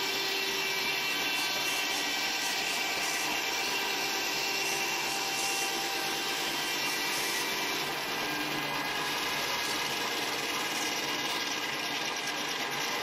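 Steam traction engine running on the belt, its flywheel driving machinery through a long flat belt: a steady mechanical whirr with several steady whining tones.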